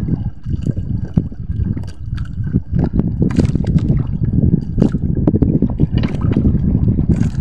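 Sea water sloshing and lapping against the hull of a small outrigger boat, with many short knocks scattered through it.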